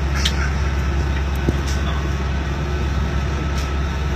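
Okinawa monorail car running, heard from inside the car: a steady low rumble under an even running noise, with a few faint ticks.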